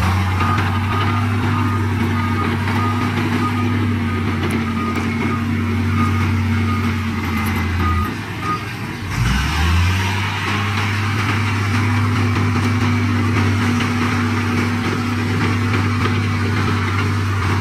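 Heavy diesel engine of earthmoving equipment running steadily, with a reversing alarm beeping for the first several seconds. About halfway through the engine drops away briefly, then picks up again with a rising note.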